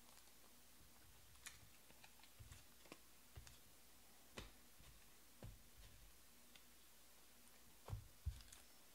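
Faint, scattered small clicks and taps of trading cards being handled and slid into plastic sleeves, with two louder knocks close together near the end.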